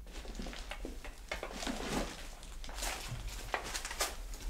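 Footsteps crunching and rustling through scattered debris and paper on the floor, with irregular sharp crackles over a low steady rumble.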